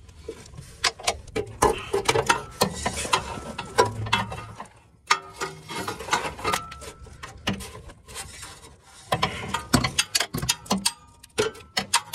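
Bursts of metallic clicking and rattling from a cordless impact on a long socket extension working a catalytic converter flange bolt loose. It comes in two busy stretches, in the first few seconds and again near the end, with a quieter spell between.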